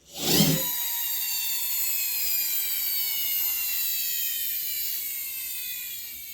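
Toy tractor's friction flywheel motor whirring after being revved: a brief scrape, then a high whine that falls slowly and steadily in pitch as the flywheel spins down, fading a little near the end.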